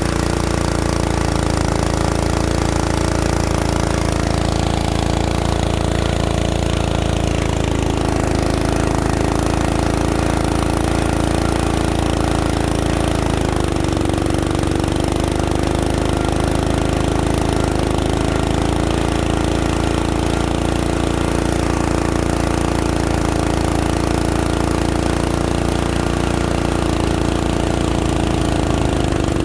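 Diesel engine of a core drilling rig running steadily, with its pitch sagging slightly a few times as if briefly loaded.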